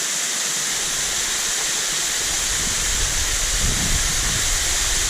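Waterfall rushing steadily, with a low rumble joining a little under halfway in.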